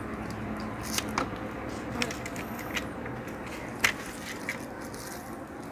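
Light clicks and taps of 18650 lithium-ion cells being handled and touched with multimeter test probes: about six short sharp ticks, the loudest about four seconds in, over steady background noise.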